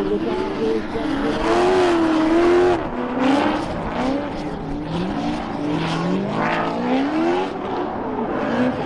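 Two drift cars sliding in tandem: their engines rev hard, the pitch swooping up and down again and again as the drivers work the throttle, over the steady noise of spinning, smoking tyres.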